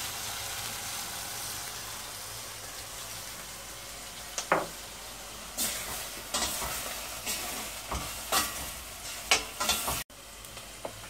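Food sizzling steadily in a stainless steel pot of courgettes, tomato and beef on a gas hob. From about halfway a metal spoon stirs the pot, scraping and clinking sharply against its sides several times.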